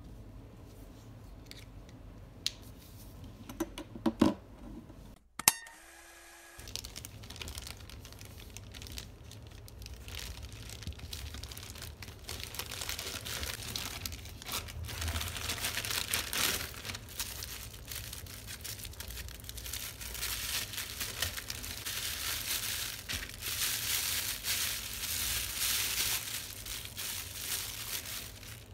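A few sharp clicks in the first seconds, then a plastic mailer bag and the clear plastic wrapping inside it crinkling and tearing as they are pulled open by hand, louder in the second half.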